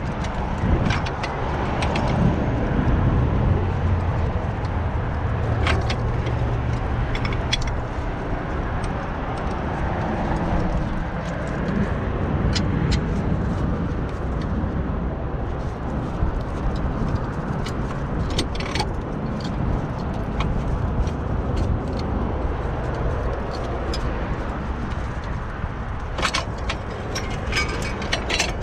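Steady wind rumble on the microphone. Scattered light metal clicks and clinks come through it, bunched near the end, as a clamp is worked on the brake caliper to push its piston back.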